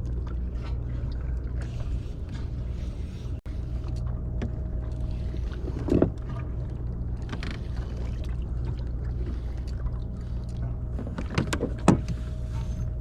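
Boat engine running steadily with a low drone, with a few sharp knocks, one about six seconds in and two near the end.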